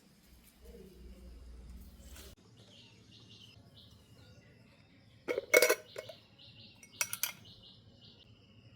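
Two short clattering knocks about a second and a half apart, the first the louder, with faint high chirping in the background.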